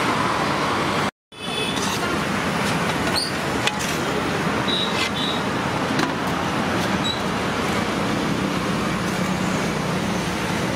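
Steady roadside traffic noise, cut off completely for a moment about a second in, with a few faint clicks over it.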